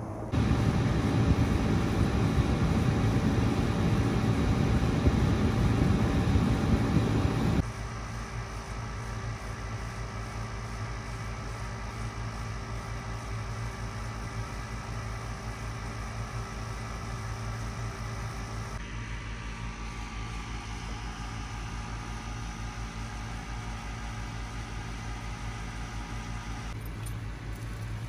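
Steady mechanical hum with a few steady low tones, louder and rougher for about the first seven and a half seconds, then dropping abruptly to a quieter, even level. There are further sudden shifts in the hum about nineteen and twenty-seven seconds in.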